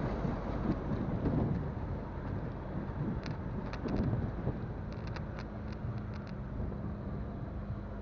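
Wind buffeting a phone microphone on a moving motorcycle, a gusty low rumble, with the engine's steady hum coming through from about halfway and a few light ticks in the middle.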